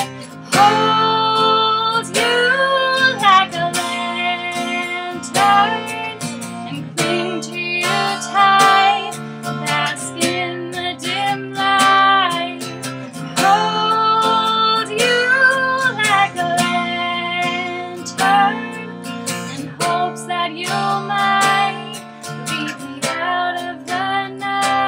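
Music: an acoustic song with strummed guitar and a female voice singing long held notes without clear words.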